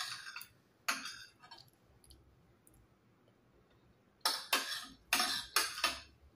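Metal spoon scraping and clinking against a ceramic plate. A couple of strokes come about a second in, then a quick run of strokes from about four seconds in.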